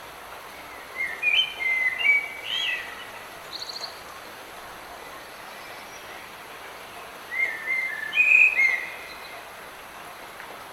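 Light rain falling as a steady hiss, with a songbird singing two short phrases of quick whistled, gliding notes, about a second in and again around seven seconds, and a brief high trill between them.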